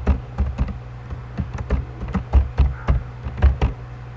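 Typing on a computer keyboard: a quick, irregular run of keystrokes that stops near the end.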